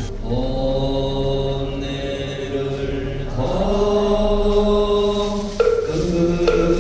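Korean Buddhist monk chanting in long held notes, the pitch shifting to a new note a little over three seconds in and again near the end.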